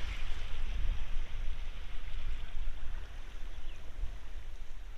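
Steady wash of sea water on the shore, a continuous hiss, with wind rumbling on the microphone.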